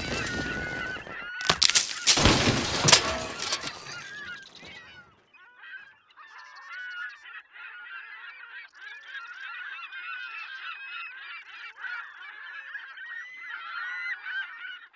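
A loud, noisy burst with several hard knocks for the first few seconds, then a flock of birds calling over one another, many short calls bending in pitch.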